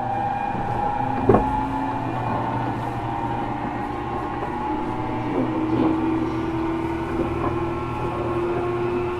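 JR Kyushu 415 series electric train running, with steady running noise and tones from the motor car. There is a sharp knock about a second in, a few lighter knocks later, and a tone that slowly rises in pitch through the second half.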